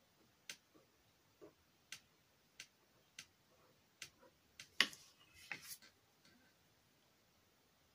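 Faint, irregular small taps and clicks from painting with a fine brush on a small acrylic canvas at a table, about a dozen, the loudest about five seconds in, then stopping.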